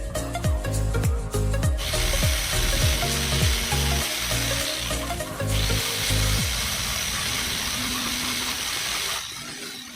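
Angle grinder fitted with a chainsaw attachment running in two stretches of steady hiss, with a short break in the middle, over background music with a heavy bass beat.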